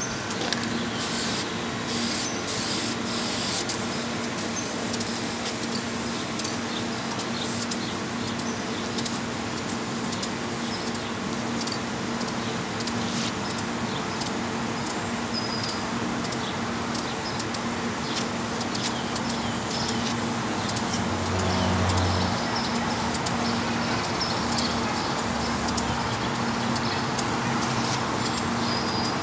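Aerosol spray can of Krylon gloss paint hissing steadily as it is sprayed in passes along a foam model-plane fuselage. A low steady hum runs underneath, and there is a brief low rumble about three-quarters of the way through.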